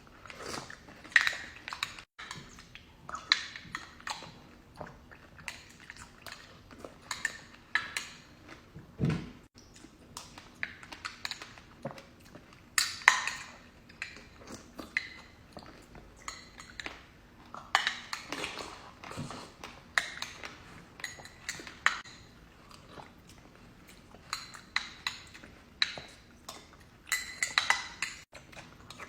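Close-miked mukbang eating: irregular crunchy bites and chewing, with occasional clinks of cutlery on dishes.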